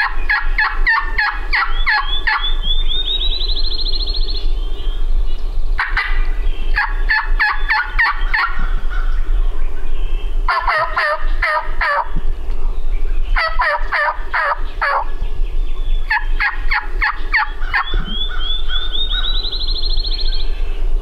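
Wild turkey gobbler gobbling five times, a few seconds apart, each gobble a rapid rattling burst.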